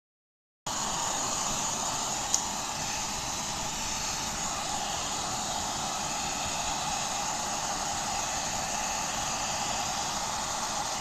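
Hair dryer blowing steadily, switched on just under a second in, with a single sharp click a couple of seconds later.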